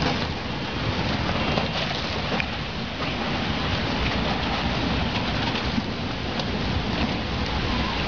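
Steady rush of water from a muddy flood torrent pouring down a street.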